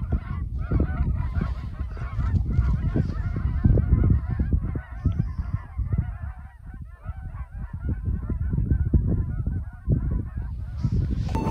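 A large flock of geese flying overhead, many birds honking at once in a dense, overlapping chorus that thins briefly about halfway through. A low, uneven rumble runs underneath.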